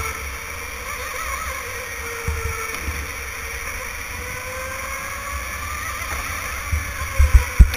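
Electric go-kart motor whining, its pitch falling and rising slowly with speed through the turns, over the low rumble of the kart on the track. A few sharp low thumps near the end are the loudest sounds.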